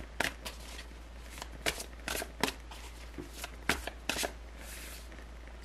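A deck of tarot cards being shuffled by hand: a run of irregular quick snaps and rustles as the cards slap and slide against each other.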